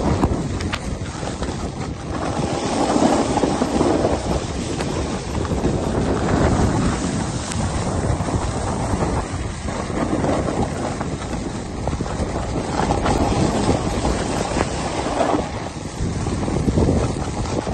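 Wind rushing over the microphone during a fast downhill ski run, a loud, unpitched rumble that swells and eases every couple of seconds.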